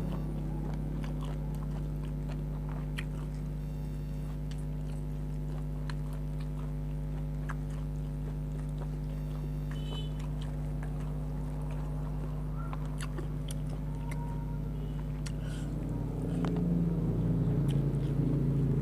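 A person chewing and eating grilled chicken, with small wet clicks and smacks of the mouth, over a steady low hum.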